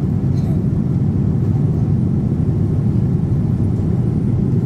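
Steady, low cabin noise of a Boeing 787-10 airliner in flight, heard from a passenger seat inside the cabin.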